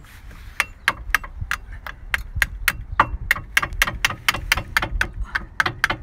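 A mallet tapping repeatedly on a car's front brake caliper: a steady series of sharp metallic knocks, about three to four a second, starting about half a second in.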